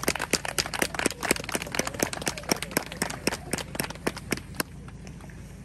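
A small group of people clapping, with separate claps heard rather than a dense roar. The applause stops about four and a half seconds in.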